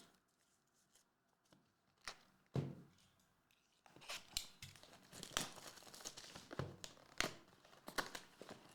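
Trading-card pack wrapper being torn open and crinkled by hand. After a quiet start and a couple of light knocks, the crackling tear and crinkle begins about four seconds in and continues.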